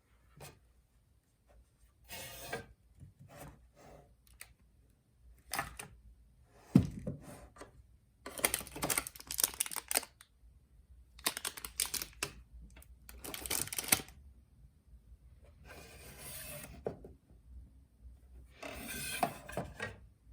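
Typing on a Hansung electrostatic-capacitive (non-contact) keyboard with light 35 g switches: runs of rapid keystrokes in bursts of one to two seconds, with short pauses between them, and one sharp heavier thump about seven seconds in.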